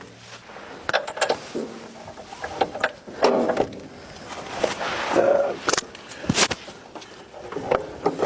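Hand tools clicking and knocking irregularly against metal while the machine's battery terminals are worked on and tightened.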